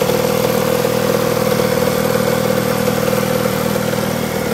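KTM 85 single-cylinder two-stroke engine idling steadily on a custom quad, heard close to its silencer. It holds an even pitch throughout without revving.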